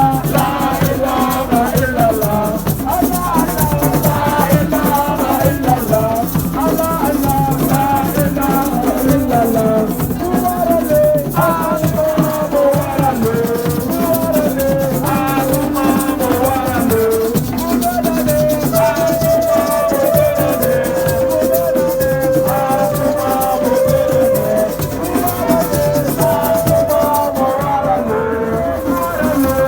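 Music carried by shaken rattles keeping a fast, steady rhythm, with a wavering melody over it that settles into held notes in the last third.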